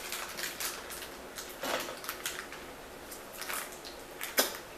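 A utensil scraping and tapping against a bowl as food is spooned in, a string of short, light strokes with a sharper clink near the end.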